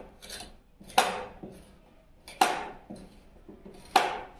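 Three sharp metallic clicks about a second and a half apart, each ringing briefly: a hex Allen key clicking on a bolt head as it is turned and reset, working loose a slow-to-open bolt.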